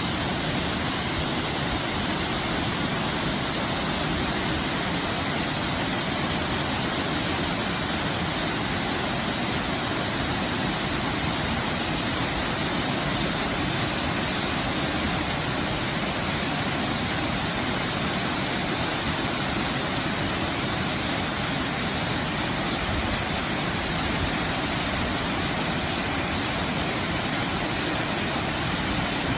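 Steady rushing roar of a waterfall: Baker's Falls, about 20 m high, plunging over a wide rock into a gorge.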